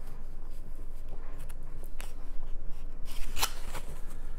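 Paper booklet handled and leafed through: soft rustling with a few light clicks and snaps, the sharpest a little past three seconds in.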